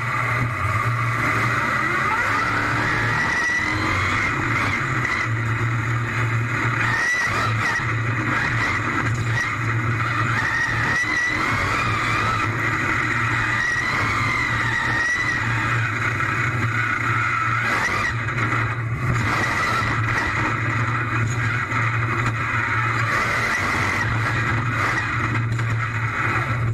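Monster truck engine running hard and steady, heard from inside the cab while the truck drives, with a low drone and a high whine that wavers in pitch above it.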